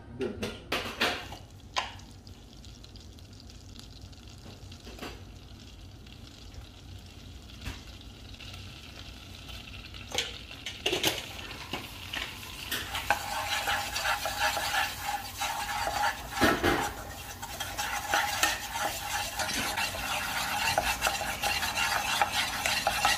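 Butter sizzling gently in a nonstick pot, then ground spices including coriander powder tipped in and frying. The sizzle turns louder and crackly about halfway through, with a wooden spatula stirring and scraping against the pan.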